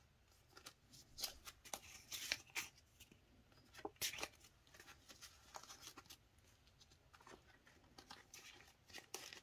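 Faint rustling and crinkling of clear plastic cash envelopes and banknotes being handled in a binder: scattered short crackles, with a few sharper ones about 1, 2.5, 4 and 9 seconds in.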